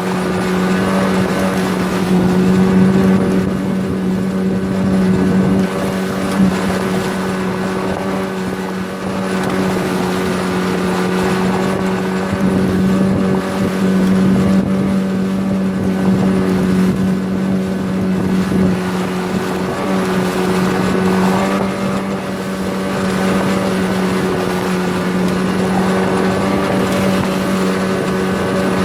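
A 9.8-horsepower outboard motor running at a steady speed, driving a small sectional boat along; its pitch holds level throughout.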